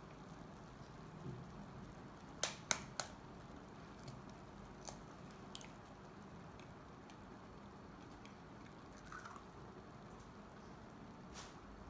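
Three sharp taps about two and a half seconds in as an egg is cracked open with a fork over a pan, then a few lighter clicks of shell and fork. Under them runs the low, steady noise of noodle broth simmering in a frying pan.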